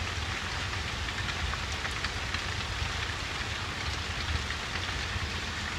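Steady rain falling: an even hiss with scattered faint drop ticks and a low rumble underneath.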